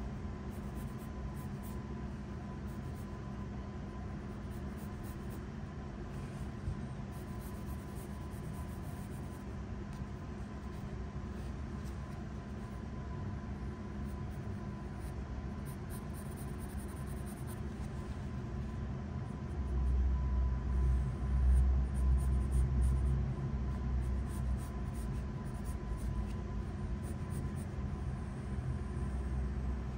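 Graphite pencil shading on a sheet of paper, with scratchy strokes over a steady low background rumble and a faint hum. The rumble swells louder for a few seconds about two-thirds of the way through.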